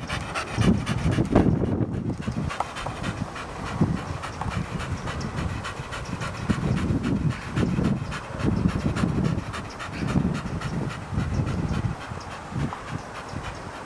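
Staffordshire bull terrier panting steadily through a wide-open mouth, in a run of repeated breaths.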